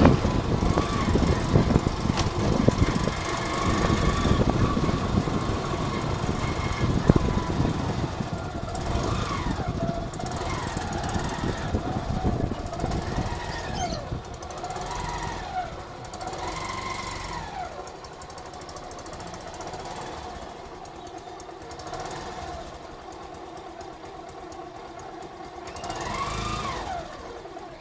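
Engine and road noise of a moving motor vehicle, loudest in the first half and fading partway through. A string of short rising-and-falling tones runs over it in the second half.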